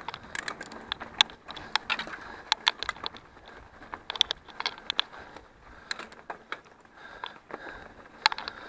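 Mountain bike clattering over a rough, stony dirt trail: irregular sharp knocks and rattles from the bike, several a second, over a steady rustle of tyres on dirt and gravel.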